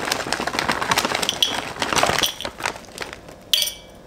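Plastic bag crinkling as brittle pieces of kokum butter are poured out of it into a glass beaker, with a dense patter of small clicks as the pieces land. It thins out about three seconds in, with one brief sharp rustle near the end.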